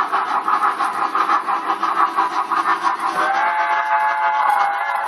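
HO-scale model steam locomotive's onboard sound system chuffing in a quick, even rhythm, then sounding a steady multi-note steam whistle from about three seconds in.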